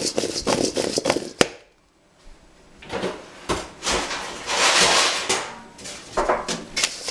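Cubed beets tossed in a stainless steel mixing bowl, rattling and sliding against the metal, ending about a second and a half in with a sharp knock as the bowl is set down. A few seconds later comes a stretch of rustling hiss and scattered knocks of handling.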